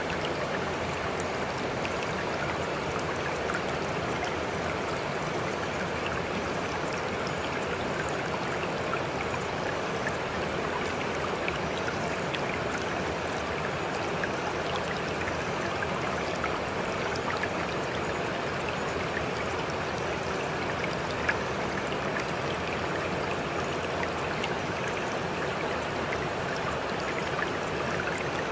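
Steady running-water sound like a babbling stream, even and unbroken, with faint scattered droplet ticks. It is the masking bed of a subliminal recording, which hides the affirmations beneath it.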